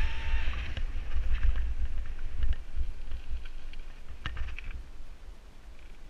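Wind buffeting the microphone of a bicycle-mounted camera while the bike rolls over a dry dirt trail, tyres crunching on grit with scattered clicks and rattles and one sharper knock about four seconds in. The noise fades gradually toward the end.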